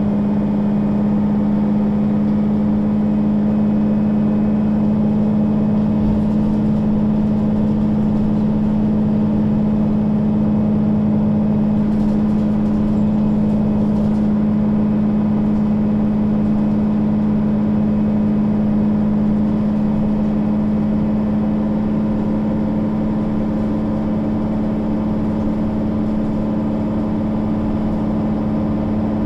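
Mercedes-Benz O 530 G Citaro articulated bus's diesel engine running at a steady, unchanging speed with an even drone.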